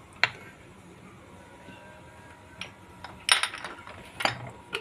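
Steel spoon clinking against kitchen containers while salt is spooned into a steel grinder jar: a single click just after the start, a quick cluster of clinks about three seconds in, and one more clink near the end.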